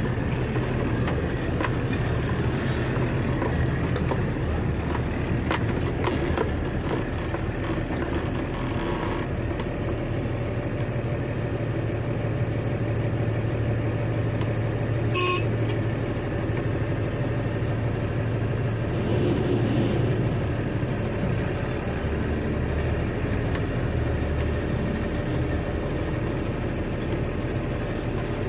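Truck engine running steadily with a low hum, with scattered faint rattles and a short high beep about halfway through.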